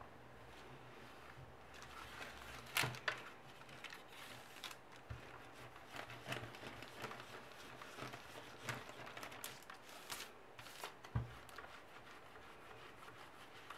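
Faint rustling and crinkling of baking paper as a household iron is slid back and forth over it to fuse Hama beads, with a few sharper knocks and clicks, the loudest about three seconds in and again about eleven seconds in.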